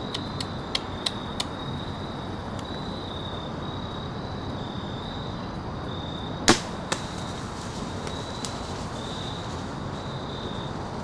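A crossbow is fired once about six and a half seconds in: one sharp crack, then a fainter click just after. A few small clicks come in the first second or so as the crossbow is handled, and insects pulse steadily in the background.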